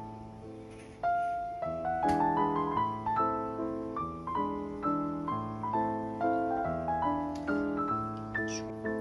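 Background piano music, with notes struck about twice a second, each fading after it is played; it grows louder about a second in.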